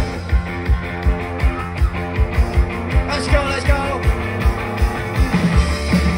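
Live rock band playing loud through a venue PA, heard from the crowd: a fast, even kick-drum beat a little under three hits a second, with electric guitars and bass.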